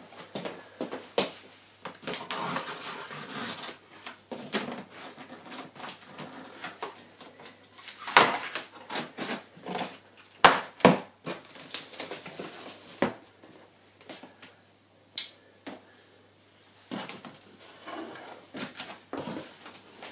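Large taped cardboard box being opened by hand: the cardboard flaps are pulled open and handled, with rustling and scraping and a run of sharp knocks and clicks, the loudest few near the middle.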